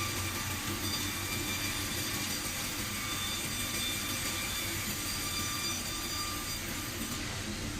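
Sawmill machinery running steadily, a constant mechanical drone with a low hum and faint steady whines.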